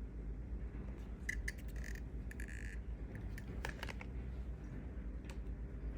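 Small sharp clicks and brief squeaks of hands working on a GoPro 10's body and screen parts, over a steady low hum.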